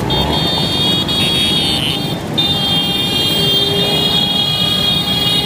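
A group of vintage Vespa scooters' two-stroke engines running as the scooters ride slowly past close by, with a steady high-pitched whine over the rough engine noise.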